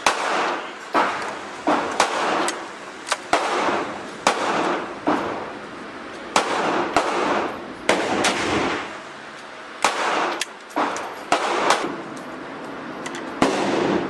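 Gunshots from several guns at an indoor range, sharp reports at an uneven pace of about two a second, each ringing off the range walls. A single-shot break-action rifle cannot fire this fast, so most of the shots come from other shooters.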